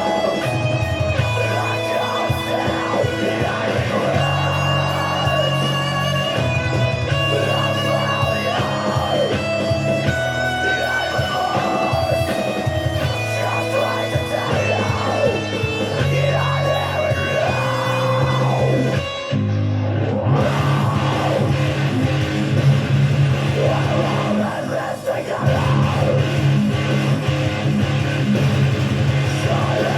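Guitar playing a heavy rock song over bass, with a brief drop in the sound about twenty seconds in.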